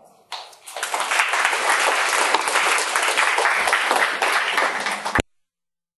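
Audience applauding, starting just after the opening and cut off abruptly about five seconds in.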